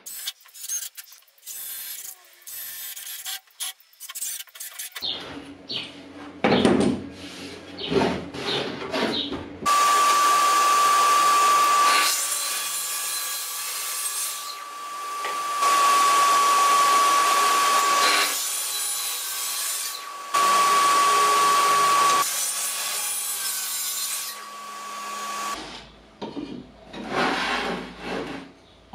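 Track saw running and cutting wooden boards on its guide rail: several cuts in a row, each a loud steady whine with the rasp of the blade through the wood, starting about ten seconds in and stopping a few seconds before the end. Before and after the cuts, wooden pieces knock and rub on the workbench.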